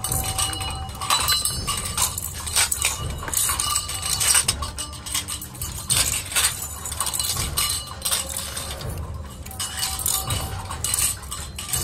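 Irregular metallic clinks and jangles as coiled steel springs are handled and dropped into steel oil-filter canisters, the cans knocking against each other. A steady low hum runs underneath.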